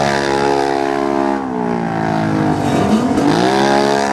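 Side-by-side UTV engine revving as it spins doughnuts in mud. Its pitch sags about halfway through, then climbs steeply again near the end.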